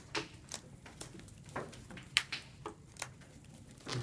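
Yu-Gi-Oh trading cards being handled and put down on playmats: irregular light clicks and taps, roughly two a second.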